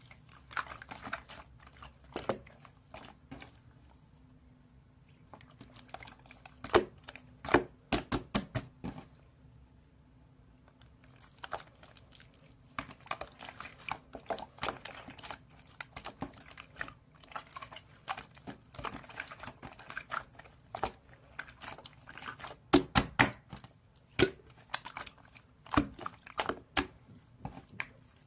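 Slime being squeezed and pressed by hand, making irregular runs of sharp sticky pops and clicks, with two short quieter pauses a few seconds in and around ten seconds in.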